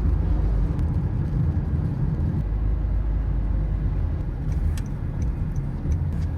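Steady low rumble, with a few faint clicks near the end.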